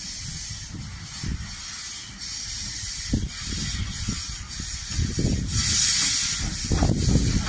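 Small tank steam locomotive approaching slowly, its steam hissing in slow, uneven chuffs. The hiss swells loudest about six seconds in.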